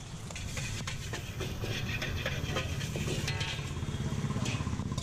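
Knife cutting carrot against a wooden board: scattered light clicks and scrapes of the blade. Under it runs a steady low engine hum.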